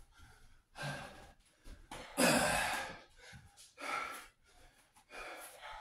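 A man breathing hard after exertion: four heavy, noisy breaths, the loudest a long exhale about two seconds in.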